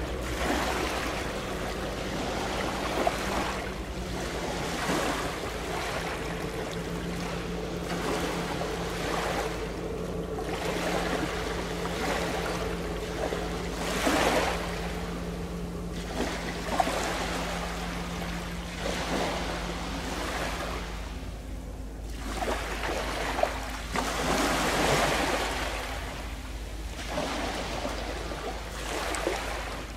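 Sea waves washing against breakwater rocks in repeated surges, over a steady low engine drone from a passing ship that fades out about two-thirds of the way through.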